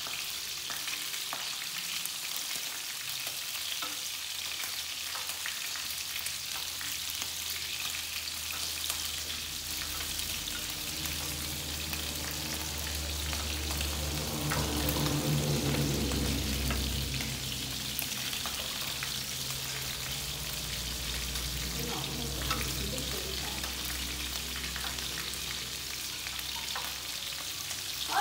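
Pieces of pork rib frying in a pan, a steady sizzle throughout. A low hum swells in the middle and fades again.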